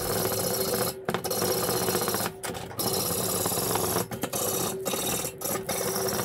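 Hacksaw cutting through steel pipe: a steady rasp of back-and-forth strokes, broken by a few short pauses.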